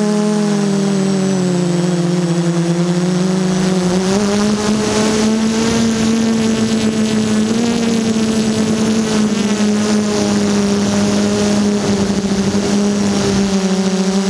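DJI Flame Wheel F330 quadcopter's brushless motors and propellers whining in flight, picked up by the onboard camera. About four seconds in the pitch steps up under more throttle, with a rush of air noise, and it eases back near the end.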